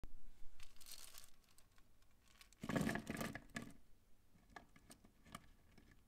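Small plastic Plus-Plus pieces rustling and clattering as they are tipped out onto the table, in two bursts, the louder one about three seconds in. A few light clicks follow as the pieces are handled.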